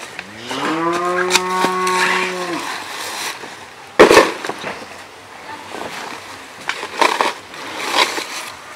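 A long, low drawn-out call, a single pitched tone that rises slightly and then holds for about two seconds. About four seconds in comes a loud, sudden rustle as the quilted jacket is snatched off the branch, followed by fainter rustling of fabric and undergrowth near the end.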